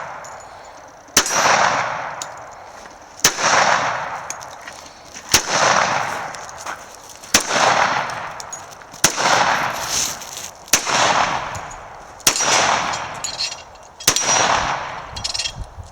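Para Wolfhound 10mm 1911-style pistol fired eight times in slow, steady succession, about one shot every two seconds. Each shot is followed by a long echo that fades away.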